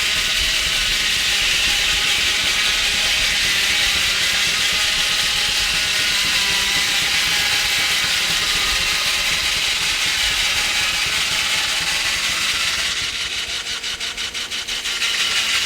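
Antique sawmill's saw blade cutting through a log, a loud steady whine over running machinery. About thirteen seconds in the cut eases and the sound drops to a quicker, even beat for a couple of seconds before picking up again.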